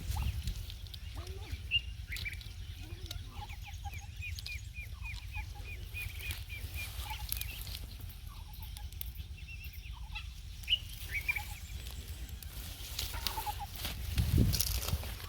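Village chickens clucking and calling, with a quick run of high chirps a few seconds in. A low rumble runs underneath and swells near the end.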